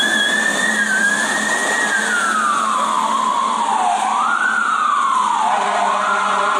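Fire ladder truck's siren in a slow wail: one long fall in pitch, a quick rise, another fall and a rise again, over a steady low hum.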